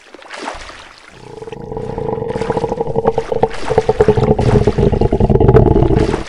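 A wash of sea water, then from about a second in a long, rasping wooden creak made of rapid pulses. It grows louder and stops abruptly at the end.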